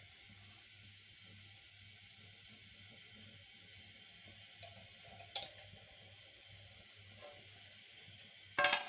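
Faint steady sizzling of spinach rice frying in a pan, with a short clink about five seconds in and a loud metallic clatter near the end as a lid goes on the pot.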